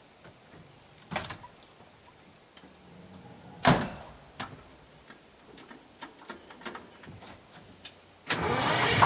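A few knocks and clicks, one much louder about three and a half seconds in, then near the end the 1968 GMC water truck's 6-71 Detroit Diesel, a two-stroke six-cylinder, starts abruptly and keeps running loud.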